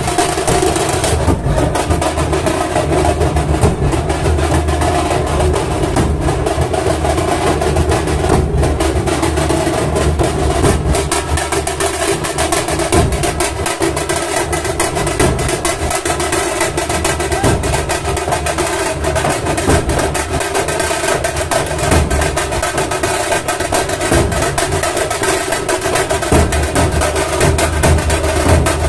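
Dhol-tasha troupe drumming: large dhol barrel drums and tasha drums beating a dense, unbroken rhythm.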